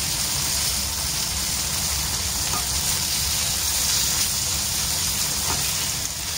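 Tofu blocks frying in oil in a nonstick wok, a steady sizzle, with a couple of faint taps from a slotted spatula.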